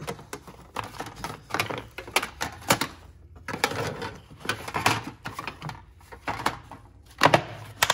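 Clear plastic inner cover of a red plastic screwdriver-bit case being handled and laid back in, with irregular plastic clicks and rattles. Two sharp, louder clacks near the end as the case lid is shut.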